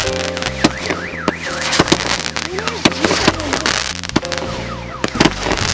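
Fireworks going off in quick succession, a string of sharp bangs and crackles. Under them a car alarm wails in a fast up-and-down warble.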